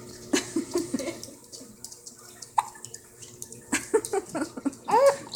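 A baby giggling in short bursts, ending in a long high squeal that rises and falls about five seconds in.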